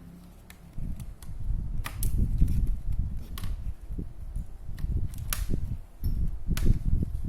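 Rubbing and bumping handling noise with several sharp plastic clicks as a laptop hard drive is tugged and wiggled out of its bay in a Lenovo G400, stuck tight.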